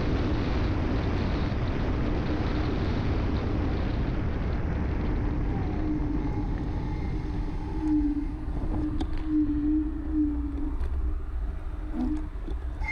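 Wind rushing over the handlebar-mounted camera's microphone while riding a personal electric vehicle along a road at speed. The wind noise eases about halfway through, and a steady hum comes through.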